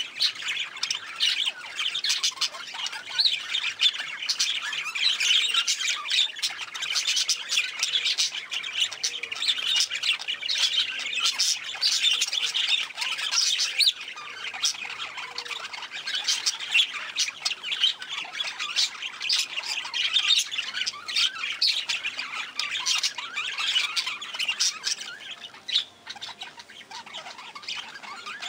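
A flock of budgerigars chattering: many short chirps and squawks overlapping without a break, with a brief lull near the end.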